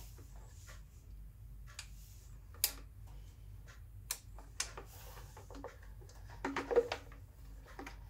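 Scattered light clicks and taps of plastic filter parts being handled while a greased O-ring is seated in a reverse osmosis filter housing, with a small cluster of taps near the end, over a low steady hum.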